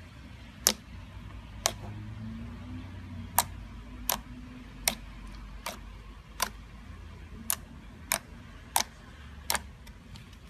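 Thick white slime being pressed and poked with fingers, giving about eleven sharp clicking pops at uneven intervals, roughly one every three-quarters of a second, over a low steady hum.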